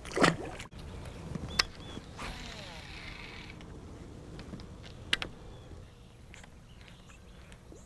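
Baitcasting rod and reel being cast and then reeled in: a few sharp clicks and a soft hiss lasting about a second.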